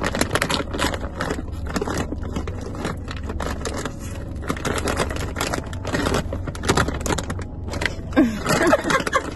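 Plastic snack bag of Saeukkang shrimp crackers being shaken and squeezed close to the microphone, giving a fast, continuous crinkling and crunching. A steady low hum runs underneath.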